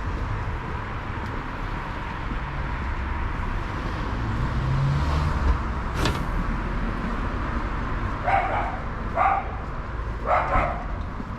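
Steady low outdoor rumble, with a sharp click about six seconds in, then a dog barking three times near the end.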